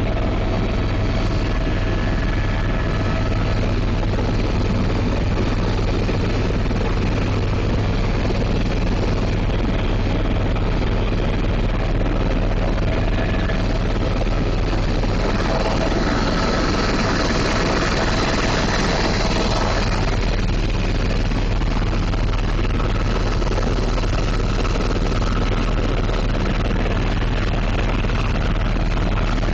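Helicopter in flight heard from aboard: a steady, loud drone of engine and rotor with a low hum. The hiss brightens for a few seconds about halfway through.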